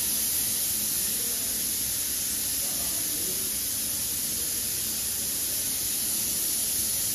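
Wind blowing: a steady, even hiss with an uneven low rumble underneath.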